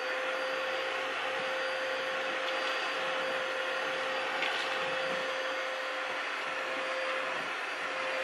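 Bissell Hard Floor Expert vacuum with its 6-amp motor running steadily, a constant whine over the rush of suction air, while it picks up a floor mess of Cheerios, oats and fuzz.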